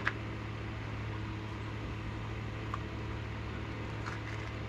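Steady low machine hum with a constant hiss, and a couple of faint clicks as the cooked lobster tail's shell is handled.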